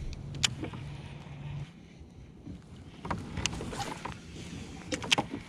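Handling sounds of a baitcasting rod and reel in a kayak: a few sharp clicks and knocks, the loudest as a quick pair near the end. Under them a low steady hum cuts off about a second and a half in.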